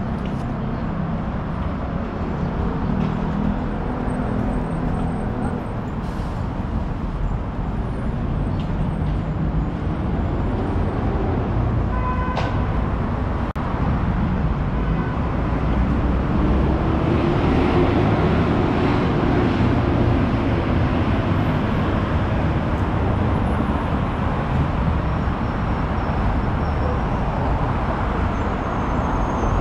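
City street traffic: steady noise of passing cars and other vehicles, with a heavier vehicle swelling past between about sixteen and twenty-two seconds in. A short pitched beep sounds about twelve seconds in.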